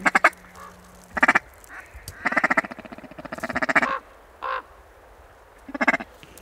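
Mallards quacking in scattered bursts, some single quacks and some fast chattering runs.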